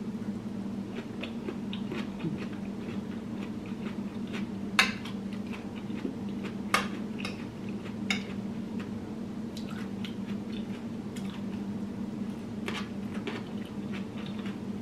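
Close-up chewing and mouth sounds of someone eating a meal of rice and vegetables, over a steady low hum. Utensils click against a ceramic bowl, with two sharper clicks about five and seven seconds in.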